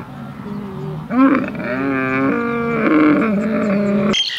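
Several drawn-out, wavering animal calls follow one another, each held for about a second. Near the end they cut off abruptly and bird chirps begin.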